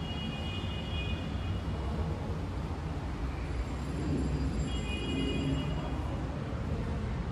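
Steady low rumble of road traffic, with two brief high tones about a second long, one near the start and one around the middle.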